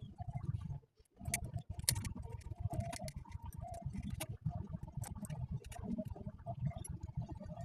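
Irregular small clicks and taps of hand work on a starter motor's parts, over a low rumble, with a brief pause about a second in.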